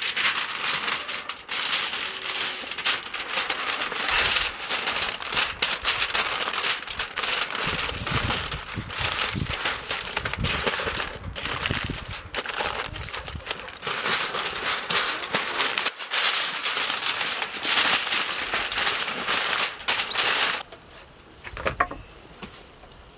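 Aluminium foil crinkling and rustling as it is folded and pressed by hand around a rack of lamb ribs, with a few soft thuds of hands on the table; the crinkling stops near the end.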